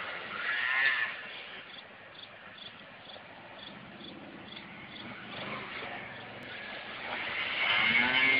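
Quad ATV engines revving on a hill climb: one is loud and revving at first, then fades to a distant drone about a second in, and another grows louder near the end as it comes closer. Faint high chirps repeat about twice a second in the quieter middle.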